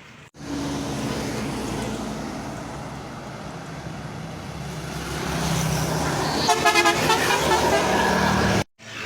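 Tour bus passing in traffic with its engine and tyre noise swelling, then sounding a telolet basuri multi-tone musical horn. A quick run of rapid staccato toots comes about six and a half seconds in, followed by held chord-like notes until the sound cuts off suddenly.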